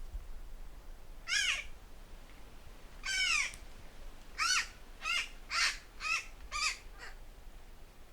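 Mariana crow (aga) calling: a series of about seven short, harsh caws, each bending down in pitch at its end, the second one longer than the rest, with gaps of half a second to two seconds between them.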